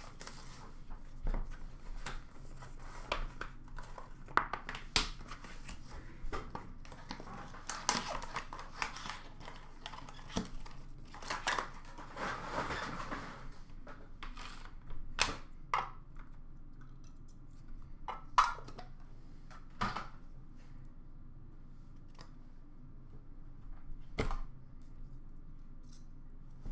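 Hands opening a trading card box and handling its packaging: scattered taps and knocks of cardboard, with a stretch of tearing and crinkling wrapper in the middle and sparser knocks afterwards.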